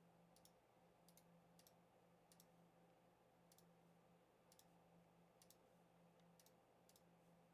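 Near silence with faint computer mouse clicks, many in quick pairs like double-clicks, about one a second, over a faint low hum.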